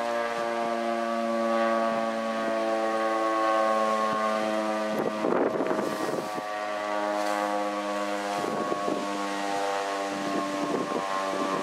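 Federal STH-10 outdoor warning siren sounding a steady tone during its monthly test, its pitch sagging slightly about halfway through. Gusts of wind rumble on the microphone around the middle and again near the end.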